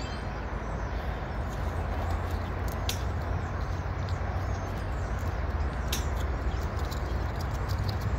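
CN freight train rolling past: a steady low rumble of the train moving on the rails, with a few sharp clicks.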